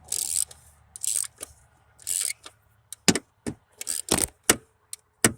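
Hand work on a truck's distributor and ignition parts: three short scraping, rustling sounds, then a quick run of about eight sharp clicks and knocks of parts and tools being handled.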